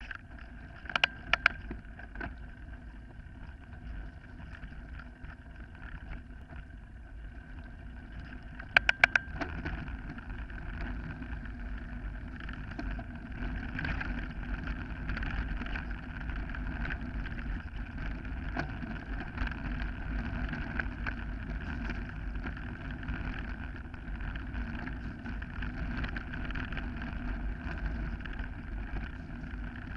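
Mountain bike riding fast down a gravel forest trail: a steady rumble and rattle of tyres and bike over the stony surface, with wind on the microphone. There are a few sharp knocks near the start and again about nine seconds in, and it gets a little louder from about ten seconds on.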